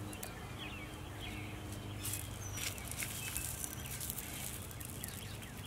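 Small gravel pebbles clicking faintly as a hand sifts and moves them, with a few short bird chirps in the background.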